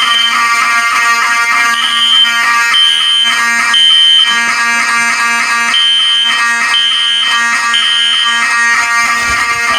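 Fire alarm notification appliances sounding together during a system test: a continuous buzzing horn tone under a high beep repeating in the temporal-three evacuation pattern, three short beeps about a second apart and then a pause.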